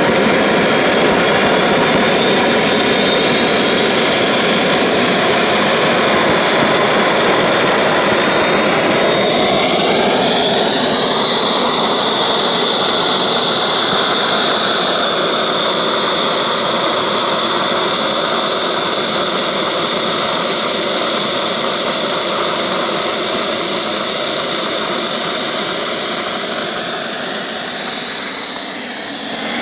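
Home-made kerosene-fuelled model gas turbine, with a centrifugal compressor and axial-flow turbine, running loud with a rushing jet noise and a high whine. About a third of the way in the whine sweeps up in pitch as the engine speeds up, then holds high and keeps creeping upward.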